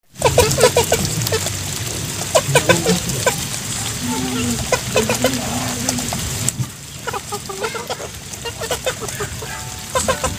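Chickens and Muscovy ducks feeding from a metal bowl of wet feed: quick clicking and dabbling of beaks in the bowl, with short clucks from the chickens.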